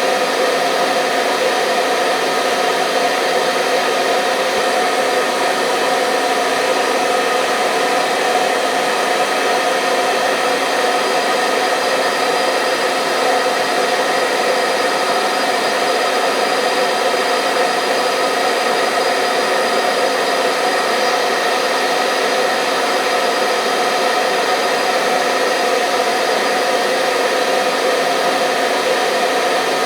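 Hair dryer running steadily at a constant speed: an unbroken whooshing hiss of blown air with a faint steady motor hum, used as white noise to lull newborn babies to sleep.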